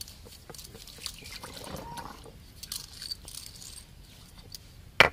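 Stone muller and a hand scrubbing a wet stone grinding slab as it is washed: uneven gritty scraping and small clicks of stone on stone. One sharp stone knock near the end is the loudest sound.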